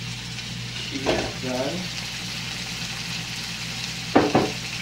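Hamburger patties sizzling as they fry in a nonstick skillet, a steady hiss of hot fat. A sharp knock comes about four seconds in.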